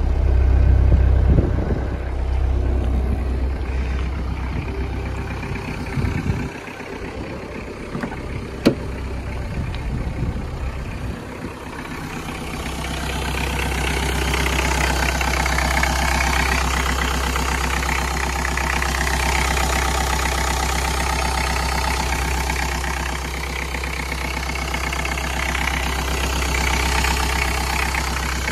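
Škoda Felicia pickup's 1.9-litre naturally aspirated diesel idling on sunflower oil. First comes a deep exhaust rumble at the tailpipe, with one sharp click about a third of the way in. Then, a little before halfway, it changes to the engine's own steady diesel clatter under the bonnet.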